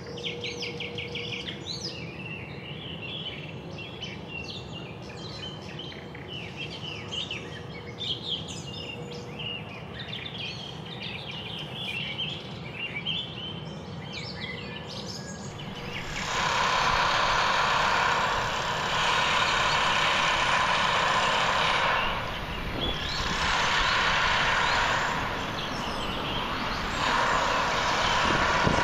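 Small birds chirping and calling over a low hum of outdoor background noise. About halfway through, a much louder, steady rushing vehicle noise takes over and dips briefly a couple of times.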